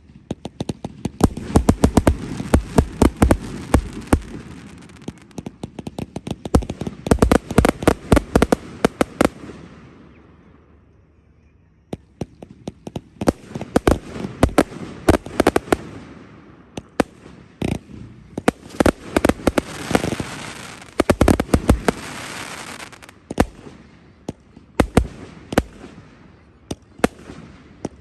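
Fireworks display: rapid volleys of sharp bangs over crackling, in two long barrages with a lull of about two seconds in the middle.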